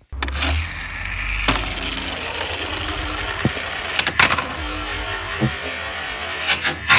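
Toy police minicar rolling down sloped wooden boards: a steady rumble of its small wheels on the wood, with sharp knocks about a second and a half in, at about four seconds as it crosses the join between two boards, and again near the end.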